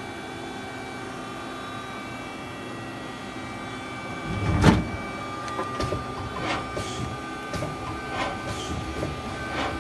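Mazak SQT-100MY CNC turn-mill lathe humming steadily at rest, then a heavy clunk about halfway through, followed by a string of sharp clicks about two a second as its 12-station tool turret indexes.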